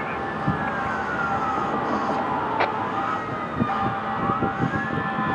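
Fire apparatus siren in slow wail mode: one long falling sweep, then rising again near the end, over steady traffic noise.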